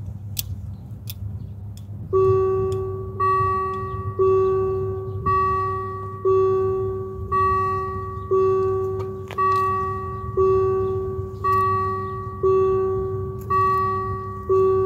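Level-crossing warning bell starting to ring about two seconds in, striking about once a second, each ring dying away before the next: the crossing is activating, closing for an approaching train.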